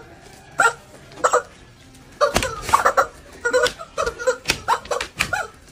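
Rubber screaming chickens being stepped on and squeezed, letting out short, honking squawks: a couple early on, then a rapid jumble of them from about two seconds in, with a few sharp smacks among them.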